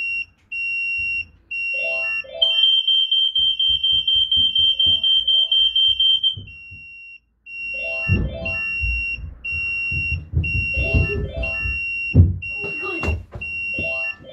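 Smoke alarm sounding: a high-pitched tone repeating as long beeps, switching for about four seconds to a faster pulsing tone, with knocks and thuds throughout, the loudest about twelve seconds in.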